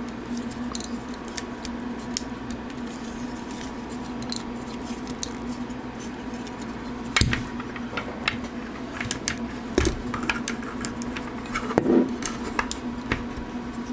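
Small plastic clicks and taps from a hand-held plastic toy figure being handled, scattered and irregular, loudest about halfway through and again near the end, over a steady low hum.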